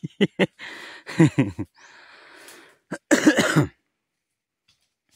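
A person coughing in several short fits, the loudest about three seconds in.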